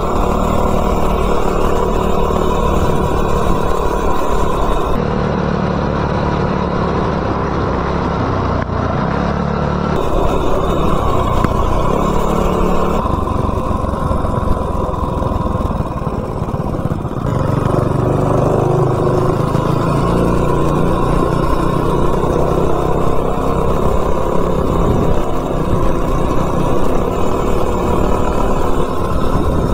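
Modified Coleman mini bike's small single-cylinder four-stroke engine with a header pipe, running steadily under way at riding speed. The engine note changes pitch several times.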